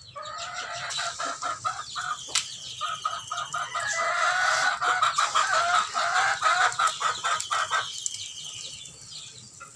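Chickens clucking, with a rooster crowing, loudest midway and dying down near the end. Underneath runs the steady sizzle and crackle of banana batter frying in hot oil.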